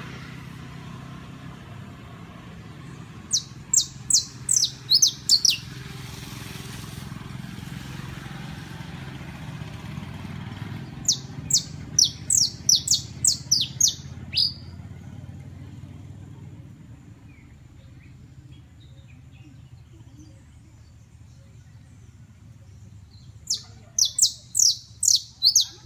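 Saffron finch (canario criollo) singing three short bursts of rapid, sharp, high chirps that sweep downward, several seconds apart, over a steady low rumble.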